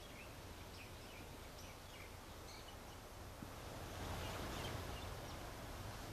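Faint outdoor ambience: scattered short bird chirps over a steady low rumble, a little louder about four seconds in.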